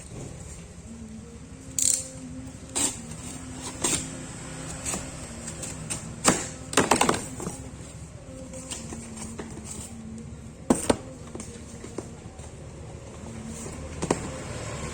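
Scattered sharp clicks and clinks of small hard items being handled, about nine of them with a quick cluster about halfway through, over a steady low hum.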